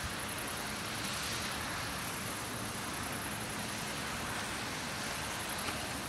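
Steady outdoor background noise: an even hiss over a low rumble, with no distinct event apart from a faint click near the end.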